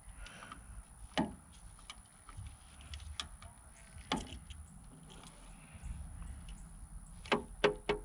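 Gloved hands twisting turn-signal socket wires and handling the plastic tail-light parts: scattered sharp clicks and taps, with a quick run of three near the end, over a low background rumble.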